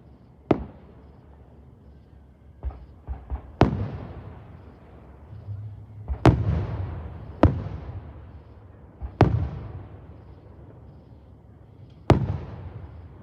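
Fireworks going off: a string of sharp bangs every one to three seconds, some with smaller pops just before, each followed by a rolling echo that dies away.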